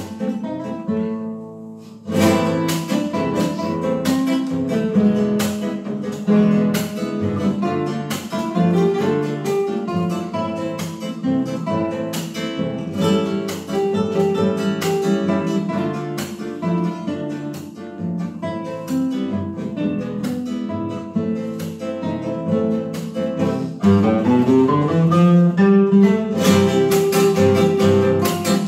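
Duet of two nylon-string acoustic guitars playing a llanera-style piece, plucked melody over strummed chords. The music thins out briefly about a second in, comes back strongly about two seconds in, and grows louder and fuller near the end.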